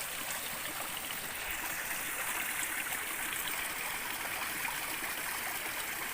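Water of a small river flowing steadily, an even rushing hiss without a break.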